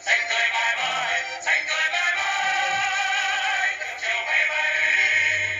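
A small vocal group singing a Vietnamese wartime song with music, holding long notes with vibrato through the second half; the singing drops away at the very end.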